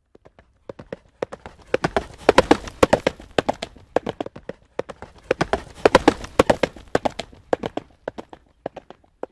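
Horse galloping: rapid, rhythmic hoofbeats that start out of silence, swell louder twice, then thin out near the end.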